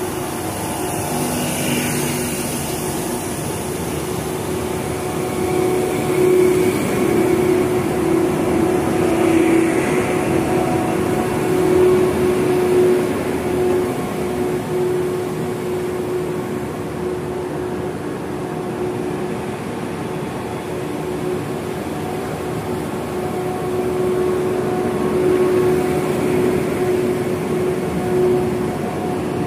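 Frecciarossa 1000 (ETR 400) electric high-speed train rolling slowly past, a steady hum of its running gear and traction equipment with a held tone that bends downward near the end.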